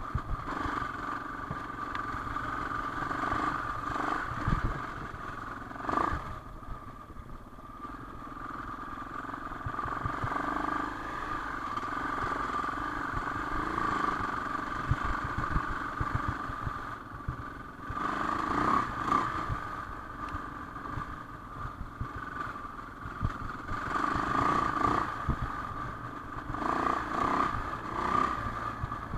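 Dirt bike engine running on a rough trail, its note swelling and easing with the throttle. Occasional knocks and thumps come from the bike over the rough ground.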